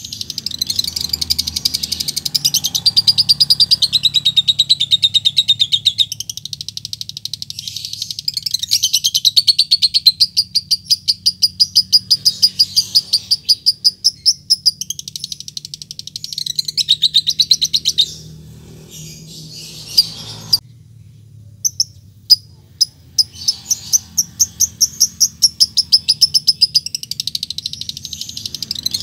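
Fischer's lovebird singing the long, rapid chattering trill known to fanciers as 'ngekek', the call used to challenge rivals and draw other lovebirds into calling. The chatter runs in long unbroken streams, stops about two-thirds of the way through for a few separate sharp chips, then picks up again.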